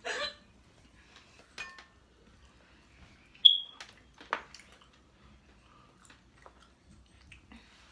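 Scattered light clicks and taps of eating and handling dishes and cutlery, with one short high-pitched squeak about three and a half seconds in.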